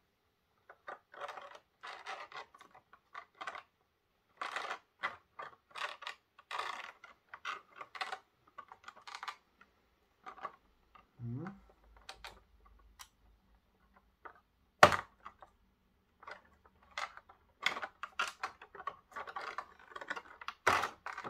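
Clear plastic blister packaging crackling and clicking irregularly as a model railway coach is worked out of its tray, with one sharp, louder click about two-thirds of the way through.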